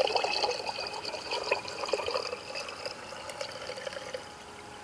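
Gasoline being poured into a glass mason jar already holding corn oil, splashing and filling. The stream is loudest at the start and stops a little after four seconds in.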